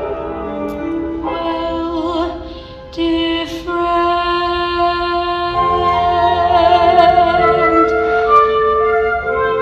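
Musical-theatre song accompaniment with a flute-like woodwind melody over held chords, some notes with vibrato; it dips briefly about two and a half seconds in, then swells back.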